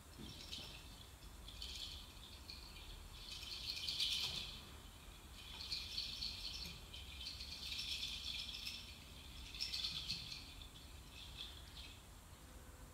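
A shaken percussion rattle played in irregular bursts of up to a second or so, with short pauses between them, its sound thin and high.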